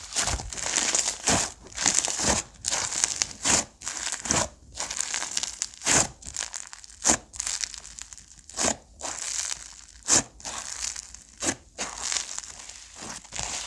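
Slime being squeezed, stretched and poked by hand, giving irregular sharp pops over a continuous soft crackle.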